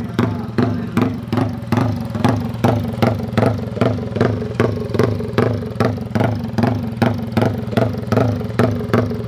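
Yamaha MX King drag bike engine idling with a lumpy, rhythmic chop, surging a little over twice a second: the "helicopter" sound of its race tune.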